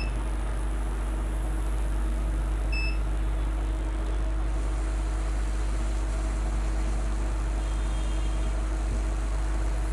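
Hot air rework station blowing with a steady hum and hiss while heating a shorted capacitor to desolder it, with two short electronic beeps, one at the start and one about three seconds in.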